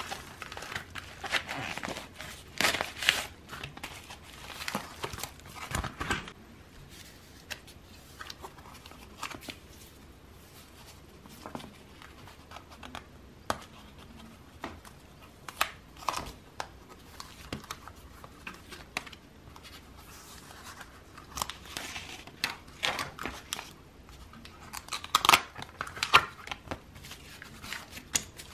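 Packaging being handled and opened by hand to get a photocard out: crinkling, rustling and sharp clicks. They come in busy spells at the start and near the end, with single clicks in the quieter stretch between.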